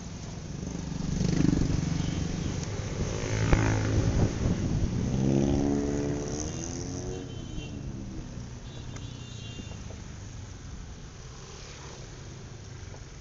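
Traffic and engine noise while driving slowly in town, with an engine note that rises and then falls in pitch about halfway through.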